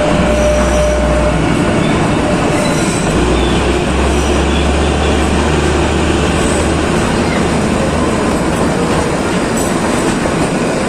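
Kalka–Shimla narrow-gauge toy train running along the track: a loud, steady rattle and rumble of the wheels and coaches.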